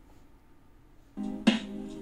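Instrumental music starting to play through a Bluedio LS Bluetooth soundbar about a second in, after a quiet second: it opens on a held chord, with a sharp drum hit shortly after.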